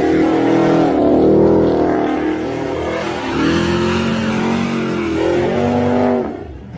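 Car engine revved hard again and again during a tyre burnout, its pitch rising and falling over the hiss of spinning tyres. The engine sound drops away suddenly near the end.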